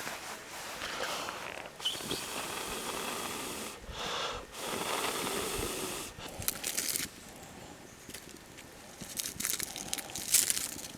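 Three long breaths blown onto a smouldering campfire to coax wet kindling alight, each a hiss lasting a second or two with short pauses between. They are followed by scattered small crackles and snaps.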